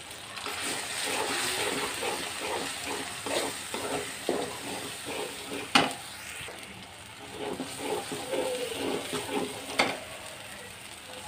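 Onions and ground spices sizzling in hot oil in an aluminium karahi, stirred and scraped over and over with a metal spatula as the masala is fried down. The spatula knocks sharply against the pan twice, about six and ten seconds in.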